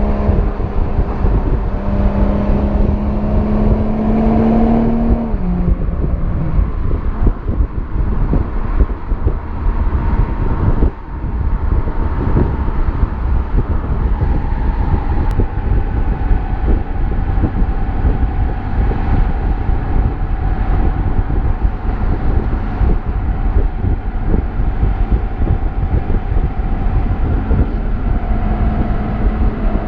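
Stock BMW M340i's 3.0-litre turbocharged inline-six exhaust, heard at the tailpipe while driving in Sport+. The engine note climbs steadily for about five seconds, then drops away. Steady cruising follows under heavy low rumble, and the note rises again near the end.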